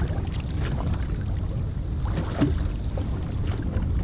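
Steady low rumble of wind and lapping water around a fishing boat on a choppy lake, with a few light knocks.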